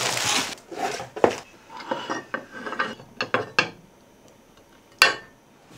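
Unpacking an Iwatani Hot Sand Grill: a plastic bag crinkles and the cardboard box rustles, then a series of small clicks and knocks as the metal grill pan is handled on a wooden table. About five seconds in there is one sharp knock.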